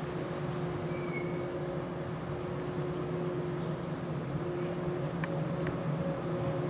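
Local electric multiple unit at a station platform, its onboard equipment giving a steady electrical hum with several fixed tones. Two faint clicks come about five seconds in.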